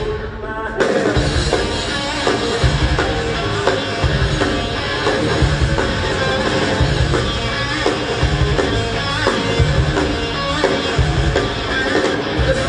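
Rock band playing live: distorted electric guitars and a drum kit through a stage PA. A brief break in the first second, then the full band crashes back in and keeps a driving beat.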